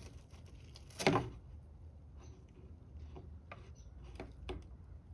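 Light clicks and taps of hands handling car trim and wiring, with one louder knock about a second in.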